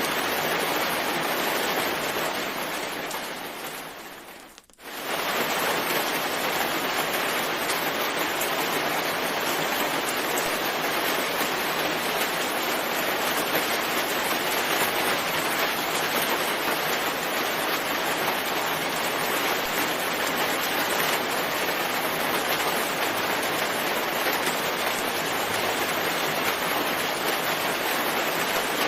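Steady, dense rainfall. About four seconds in it fades away to a brief gap and then comes straight back, as at the seam of a looped recording.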